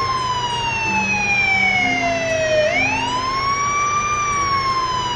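Police car siren in a slow wail: the pitch falls steadily for over two seconds, rises again quickly a little under three seconds in, then starts falling once more.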